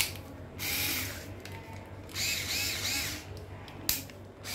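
Small 3.6-volt cordless screwdriver run in two short bursts, its motor and gears whining with a wavering pitch, with a sharp click at the start and another near the end.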